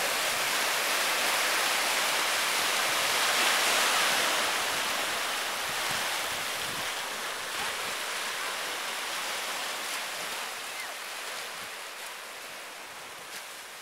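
Steady rush of ocean surf, swelling slightly about four seconds in and then fading gradually toward the end.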